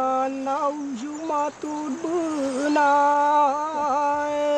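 A Talaandig singer chanting traditional epic verses solo, holding long notes on one steady pitch with short wavering turns and dips between them.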